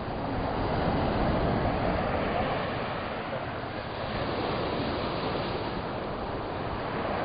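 Small waves washing onto a sandy beach: a steady hiss of surf that swells gently about a second in and again around five seconds, with wind rumbling on the microphone.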